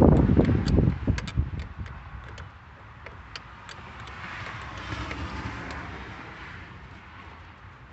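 A loud low rumble that fades away over the first two seconds, a softer swell of noise around the middle, and scattered light clicks of tools on a truck battery's terminals.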